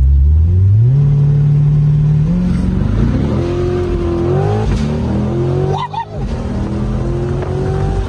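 Car engine heard from inside the cabin, accelerating. Its pitch rises in stages, with a brief dip in level about six seconds in.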